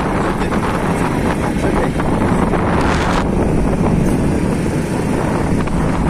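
Loud, steady rushing noise of wind buffeting the microphone, easing slightly in its upper hiss a little after three seconds in.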